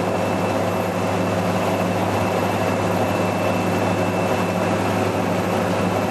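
A boat's engine running steadily at speed, a low even hum over the rush of water churned up in its wake.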